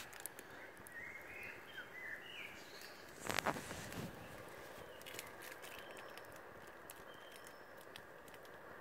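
Wood fire crackling in a small folding metal camp stove: a steady faint hiss with frequent sharp pops and ticks. A short, louder burst of noise comes about three and a half seconds in, and a few bird chirps sound in the first few seconds.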